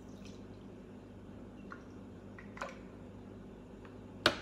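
Orange juice pouring softly from a plastic citrus-juicer jug into a glass, over a steady low hum, with a couple of faint taps. Near the end a sharp knock, the loudest sound, as the plastic jug is set back on the juicer base.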